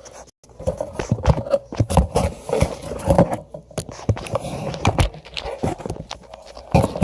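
Hands handling small parts and wiring on a bench, making irregular knocks, clicks and scraping after a short gap about half a second in.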